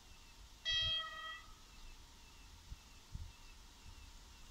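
BKG-2 electric locomotive's horn giving one short, steady-pitched blast, sounded by the crew as the train approaches a level crossing.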